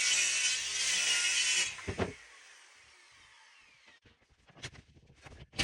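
Power saw cutting wood, switched off about 1.7 s in and winding down with a falling whine. A knock follows, then a few light clatters near the end.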